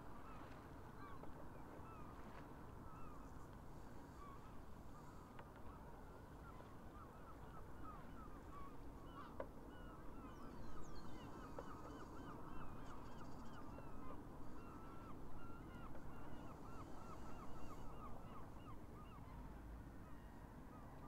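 A large flock of geese honking, many calls overlapping. The calling thickens and grows louder through the middle and thins out near the end.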